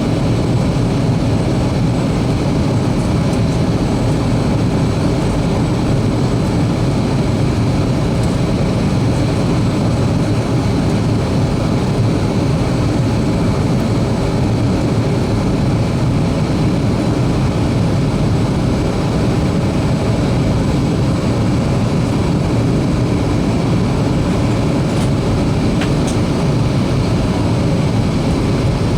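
Steady cabin noise inside a Boeing 737-300 airliner in flight: the rush of airflow and the hum of its CFM56 jet engines, a dense low rumble with hiss above it that holds constant.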